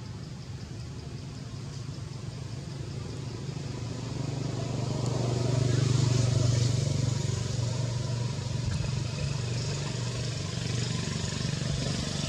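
A motor engine running, its low hum swelling to its loudest about halfway through and then easing off a little, as of a vehicle passing nearby.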